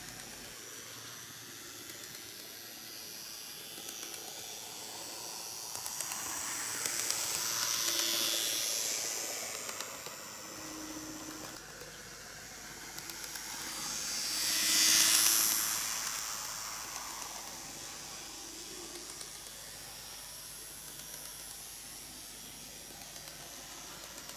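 N-gauge KATO EF81 300 model electric locomotive running alone on TOMIX superelevated track, its small motor whirring and its wheels clicking over the rail joints. The sound swells twice as it comes round the loop, loudest as it passes close by about fifteen seconds in.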